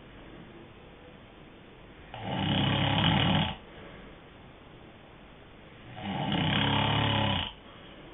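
Snoring: two loud snores about four seconds apart, each lasting about a second and a half, with quieter stretches between.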